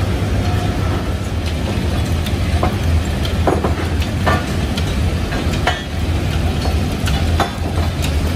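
Steady low drone of forging-shop machinery, with a string of sharp metal clanks through the middle as red-hot steel spring leaves are handled with tongs and bent on a steel bending table.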